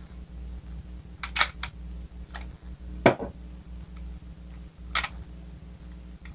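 Clicks and knocks of a WE Glock 17 airsoft pistol being handled as its magazine is taken out, with a louder knock about three seconds in as the magazine is laid on the wooden table. A steady low hum runs underneath.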